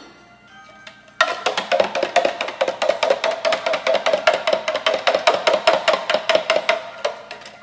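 A long spoon stirring sugar into sorrel drink in a glass pitcher, clinking fast and evenly against the glass, about six or seven ringing clinks a second. It starts about a second in and stops near the end.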